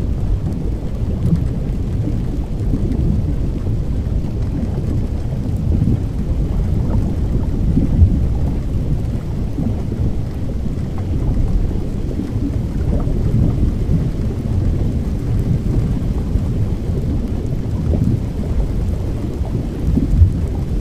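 Thunderstorm ambience: steady rain noise over a deep, continuous rumble of thunder, slightly louder about eight seconds in and again near the end.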